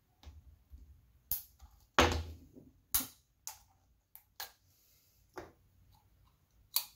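Irregular sharp clicks and knocks of a small screwdriver and hard plastic blaster parts being handled and set down on a workbench, about a dozen in all, the loudest about two seconds in.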